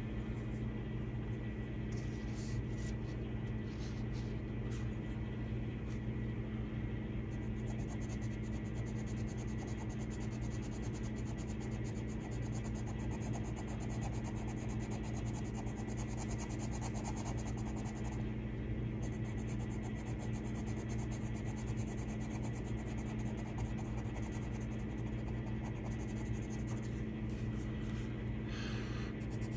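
Coloured pencil scratching on paper in quick strokes as an area is shaded in, over a steady low hum.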